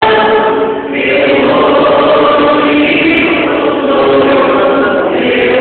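A group of voices singing a hymn in chorus, with long held notes.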